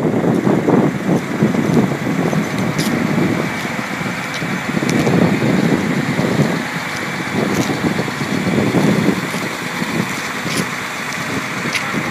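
Diesel engine of a Caterpillar AP-650B asphalt paver idling, a steady low rumble that swells and eases unevenly.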